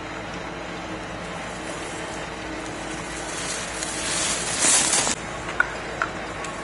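Alpine race skis carving and scraping on hard-packed snow in giant slalom turns as the racer passes close by: a hiss that swells for about two seconds and cuts off sharply about five seconds in, over a steady faint hum.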